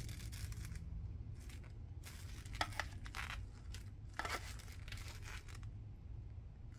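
Handling noise as coated-glove hands turn over a plastic battery charger and its coiled cord: scattered short rustles, crinkles and light clicks over a steady low hum.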